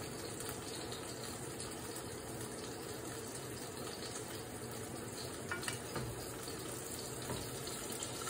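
Burger patty sizzling steadily in a stainless steel frying pan, with a few light clicks about five and a half to six seconds in.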